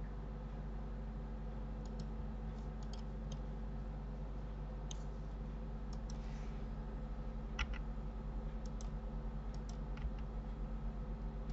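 Irregular clicks of a computer mouse and keyboard, over a steady low hum.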